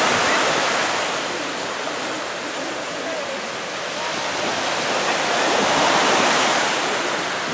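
Ocean surf breaking and washing up a sandy beach, a steady rushing noise that surges near the start and again about six seconds in.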